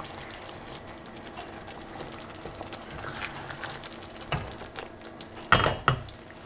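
Pan of curry sizzling and simmering as a spoon stirs in freshly added hot water. There is a knock against the pan about four seconds in and a louder clatter near the end.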